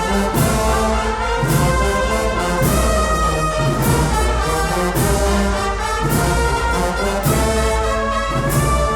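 A Spanish Holy Week agrupación musical, a brass and percussion band, playing a processional march. The brass holds full chords over percussion strokes that land about once a second.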